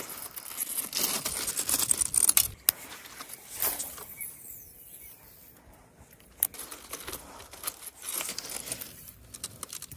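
Footsteps crunching and shifting on loose gravel and rocks, with small stones clattering underfoot. The crunching is busiest in the first few seconds, then thins to scattered clicks.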